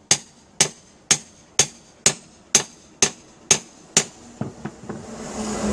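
Hammer blows on a metal bar held against a stained-glass window's wooden frame, prying off the old putty and covering. About nine strong strikes come evenly, two a second, each with a brief ring, then a few lighter taps near the end.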